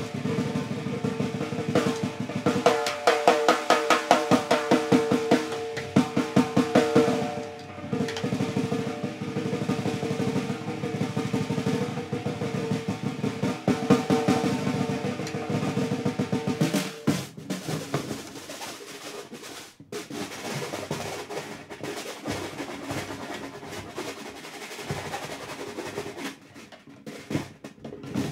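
Solo snare drum played in a fast, dense roll of loud rapid strokes with the drum ringing under them, thinning about 17 seconds in to sparse, scattered hits.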